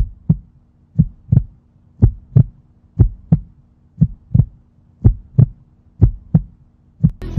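Heartbeat sound effect: a low double thump, lub-dub, repeating about once a second.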